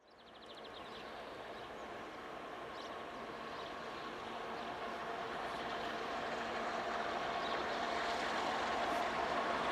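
Distant train approaching, a steady rumble with a hum of several even tones that grows slowly louder.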